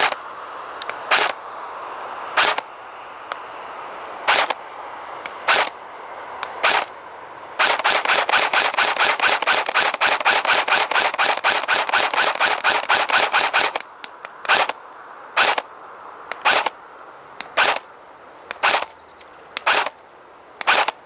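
A&K Masada ACR airsoft electric rifle firing 0.20 g BBs with a sharp clack per shot: single shots about a second apart, then a rapid stream of shots for about six seconds in the middle, then single shots again.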